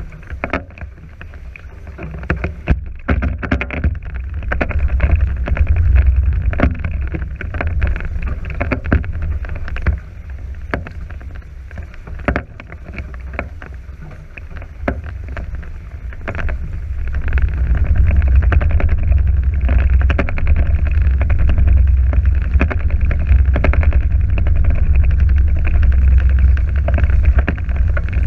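Sailing catamaran under way: wind rumbles on the camera microphone while water rushes and slaps along the hulls, with scattered small knocks. It gets louder about two-thirds of the way through as the boat picks up speed and throws spray off the hull.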